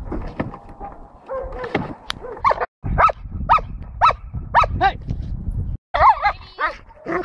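German Shepherd barking repeatedly at a protection-training helper, sharp barks about two a second, broken by a brief high whining yelp about six seconds in.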